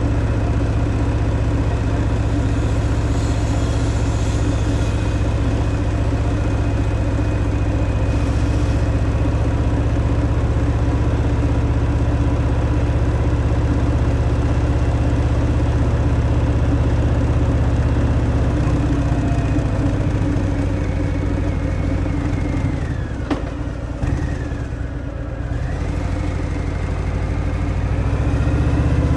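Harley-Davidson Fat Boy's Milwaukee-Eight 114 air-cooled V-twin running through its stock exhaust at a steady cruising pace. About 23 seconds in the engine note drops as the throttle comes off, then climbs again as the bike accelerates near the end.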